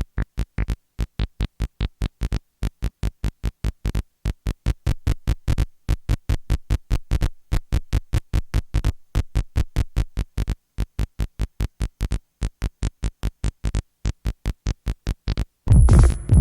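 Analog synthesizer playing a sequence of short, evenly spaced staccato notes, about four a second, broken by brief pauses between phrases. Near the end a louder full drum-machine beat comes in.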